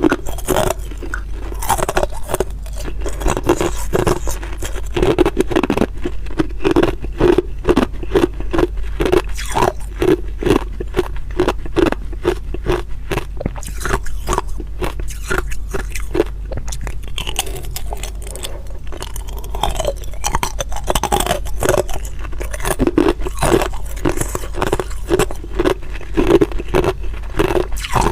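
Hard ice being bitten and chewed close to the microphone: rapid sharp crunches, several a second, with a steady low hum beneath.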